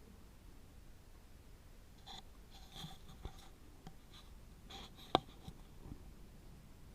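Faint scratching and rustling, with one sharp click a little past the five-second mark.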